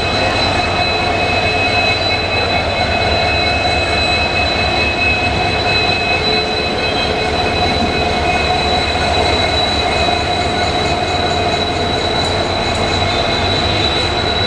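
Train running at a steady speed: a continuous rumble of wheels on track with steady high-pitched whining tones over it.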